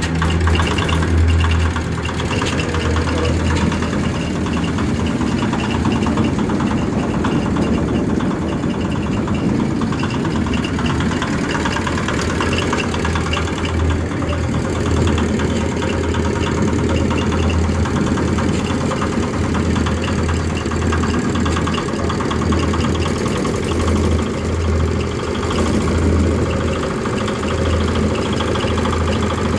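A Nishikawa Platinum 8 HP engine running steadily, driving a coconut husk fibre-separating machine, with a low drone that swells and eases every few seconds.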